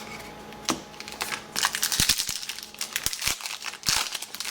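Foil trading-card pack wrapper crinkling as it is opened, with cards handled and a few light taps and clicks.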